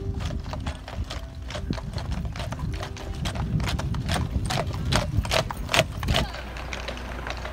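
Hooves of a line of heavy draft horses walking on a paved path, many uneven overlapping clip-clops. They stop suddenly about six seconds in, giving way to a quieter steady low rumble.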